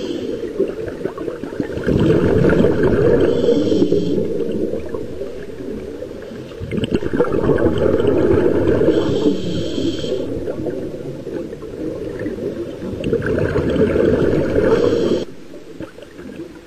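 Scuba diver's regulator breathing, heard underwater: a rush of exhaled bubbles about every five to six seconds, each ending in a short high hiss from the regulator. It drops quieter near the end.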